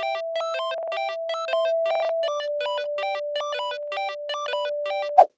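Electronic intro music: a quick repeating pattern of short high notes over one held tone that steps down slightly about two seconds in, ending with a brief loud hit.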